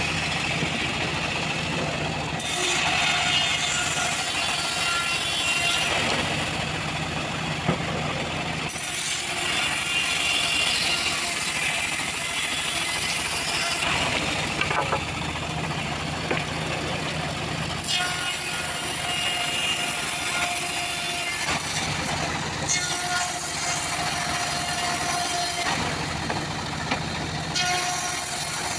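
Homemade bandsaw sawmill ripping teak into boards: the band blade cutting through the wood over the steady running of the machine. The sound shifts abruptly several times.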